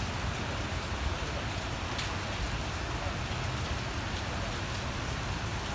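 Steady rain falling on a station platform and its roof, an even hiss with a low rumble underneath.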